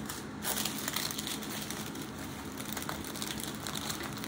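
Small plastic bags of diamond-painting drills crinkling and rustling as a stack of them is flipped through by hand, with many small crackles.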